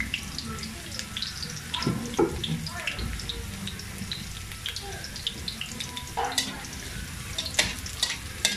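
Cubed vegetables sizzling and crackling in hot oil in a metal wok as they brown, with a few sharp clicks near the end as metal tongs turn the pieces.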